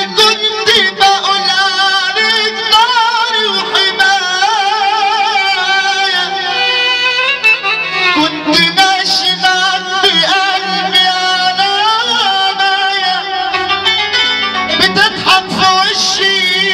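Live amplified Egyptian sha'bi music: a male singer sings a wavering, ornamented melody into a handheld microphone over instrumental backing, with sharp drum hits clustering near the end.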